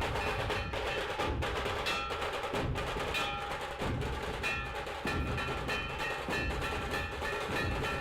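Background music with a rhythmic percussion beat of wood-block-like knocks under held bell-like tones.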